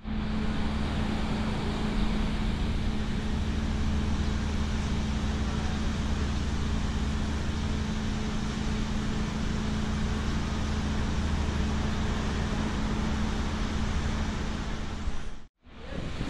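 Steady street noise of traffic with a constant low machine hum underneath, cutting out for a moment near the end.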